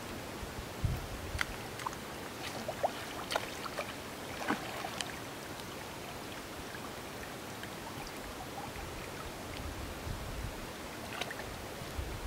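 Water splashing from a hooked fish fighting at the surface and legs wading in the shallows: light scattered splashes, bunched in the first few seconds and again near the end, over a steady hiss. A few low wind buffets hit the microphone.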